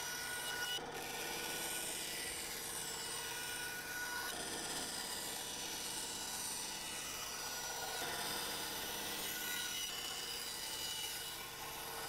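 Benchtop band saw running steadily while it cuts through two stacked sheets of KYDEX thermoplastic.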